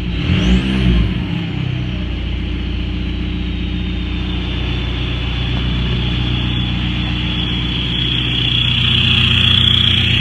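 VW Mk4 TDI 1.9 four-cylinder diesel with a straight-pipe exhaust and VNT17 turbo, blipped in the first couple of seconds and then idling. Over the idle a steady high turbo whistle rings, growing louder near the end.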